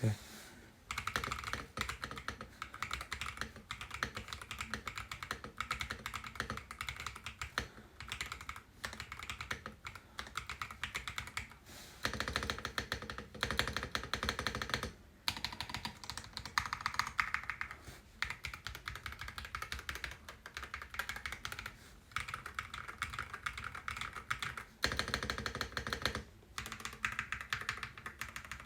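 Continuous fast typing on a HiGround mechanical keyboard: a dense stream of key strokes, broken by brief pauses every few seconds.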